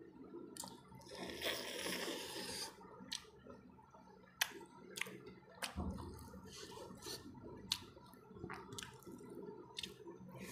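Close-up mouth sounds of eating by hand: a long wet slurp about a second in, then chewing with sharp wet lip smacks and clicks scattered through the rest.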